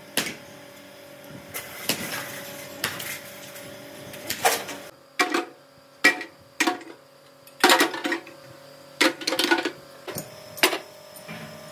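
Sledgehammer blows on scrap brake drums, one about every second and a half; then, from about five seconds in, ringing metallic clangs as broken pieces of scrap metal are dropped into a steel bin.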